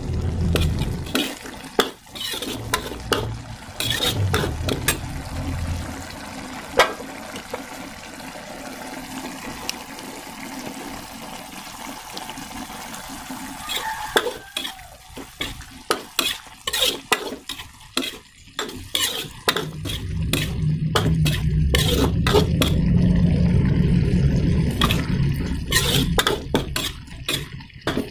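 Metal spatula stirring and scraping through a wet stir-fry of stink beans, salted fish and tempe in an aluminium wok, with frequent irregular clicks of the spatula on the pan over a steady sizzle. A low rumble comes in underneath for the first few seconds and again from about two-thirds of the way through.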